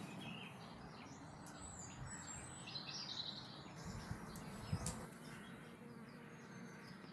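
A bee buzzing faintly, with small birds chirping in the background.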